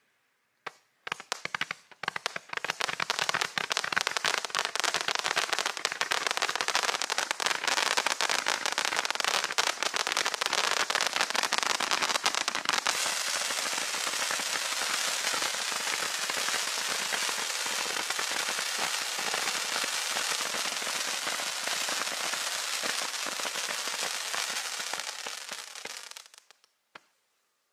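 Monkey Mania Ultimate Battle 600-shot roman candle Z cake firing. A few single shots come first, then a long unbroken run of rapid-fire pops and crackling. It stops abruptly near the end, followed by one last shot.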